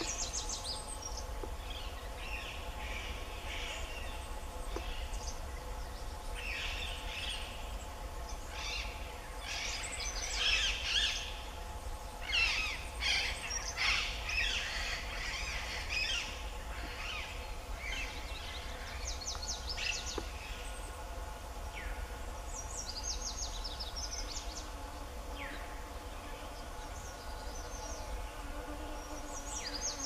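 Several birds chirping and calling, busiest about ten to sixteen seconds in, with rapid high trills a few times. A faint steady hum runs underneath.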